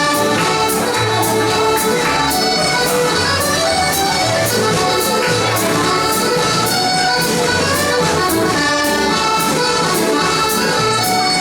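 Scottish country dance band music led by accordion, playing a lively tune over a steady, even beat.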